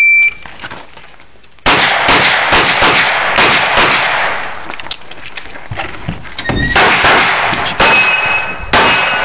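A shot timer's start beep, one short high tone, then after about a second and a half rapid strings of pistol shots. Near the end metal rings out between shots, as from hit steel targets.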